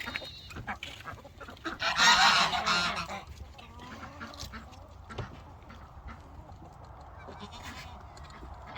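A farm animal gives one loud, harsh call about two seconds in, lasting about a second.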